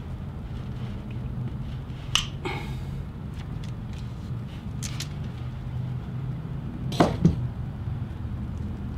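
Long-handled cable lug crimper squeezing a copper lug onto heavy battery cable: a sharp metal click and a short scrape about two seconds in, and a smaller click a few seconds later. Two loud knocks come close together about seven seconds in as the tool is set down on the workbench. A steady low hum runs underneath.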